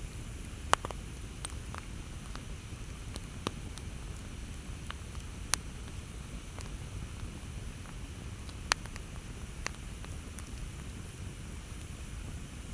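Campfire crackling: irregular sharp pops and snaps over a low steady rumble, with three louder pops standing out.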